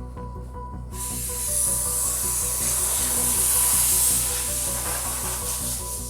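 Background music with a steady beat. About a second in, a loud hiss starts suddenly over it and fades away near the end.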